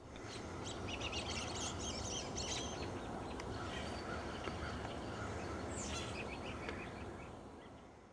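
Outdoor ambience: a steady background hiss with birds chirping now and then, fading out near the end.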